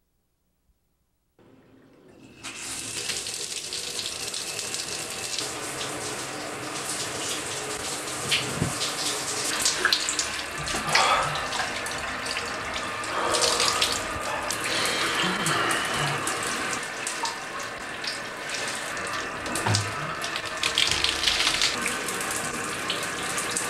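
Shower running, its spray hitting and splashing on a person as he washes his hair, starting about two seconds in after silence.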